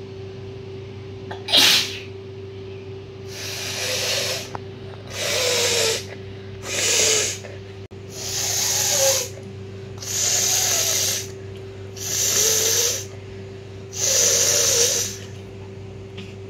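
A woman sneezes once, sharply, then blows her nose hard seven times. Each blow is a noisy blast of about a second, with short pauses between, from a nose congested by a heavy cold.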